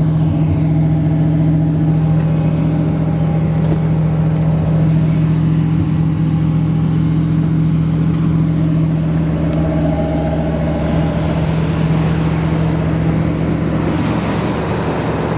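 A 1969 Corvette's rebuilt 350 V8 idling steadily, a constant low engine note with no revving.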